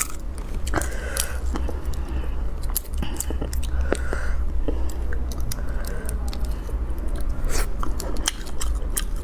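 A person biting and chewing shellfish close to the microphone, with many sharp cracks and crunches of shell. A steady low hum runs underneath.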